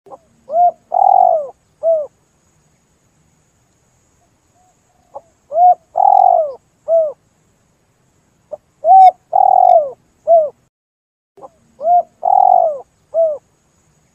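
Spotted dove (tekukur) singing its cooing song, used as a lure call. Four phrases a few seconds apart; each is a short lead-in note followed by three coos, the middle one the longest.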